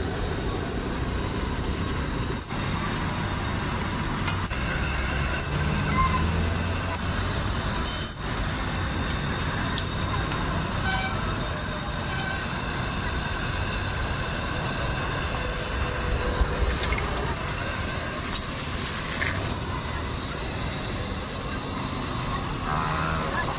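Busy street ambience: steady traffic noise with short horn toots now and then, and voices in the background.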